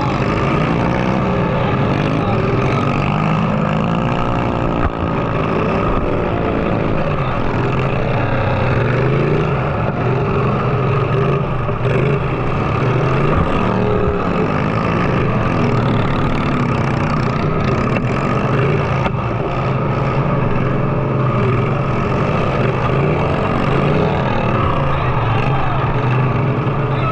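Riding lawn mower engines running loudly without a break, their pitch rising and falling as they rev up and back down a few times.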